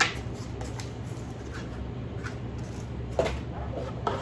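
Paper packaging being handled, a receipt envelope and the box: a sharp crisp rustle at the start and two more about three and four seconds in. Under it runs the steady low hum of an air conditioner.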